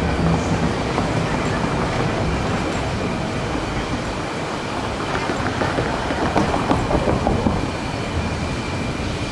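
Blue Line light-rail train running through the crossing with a steady rumble and a thin steady high tone. A stretch of rapid clicking comes from about five to seven and a half seconds in.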